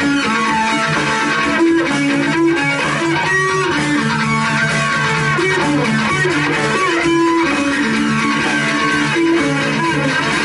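Live instrumental rock trio: electric guitar playing a melody of held notes with bends, over bass guitar and drums.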